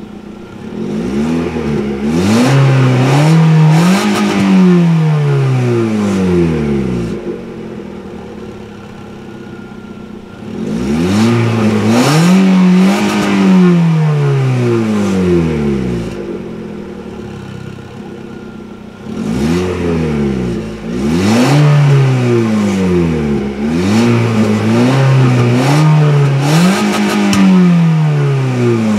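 2016 Lada Vesta's four-cylinder petrol engine free-revved while parked, in three spells of repeated blips with the pitch rising and falling. The spells start about a second in, at about ten seconds and at about nineteen seconds, and the engine drops back to a steady idle between them.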